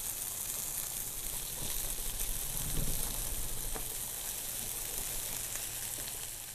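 Panko-breaded grouper fillets sizzling in olive oil on a flat-top griddle at high heat: a steady hiss with scattered small pops and crackles.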